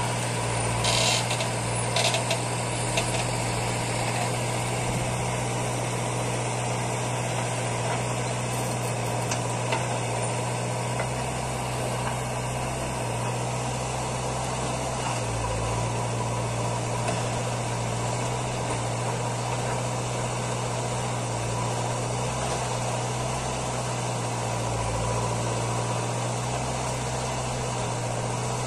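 Diesel engine running steadily at one constant speed, a low hum. There are a few short knocks in the first few seconds.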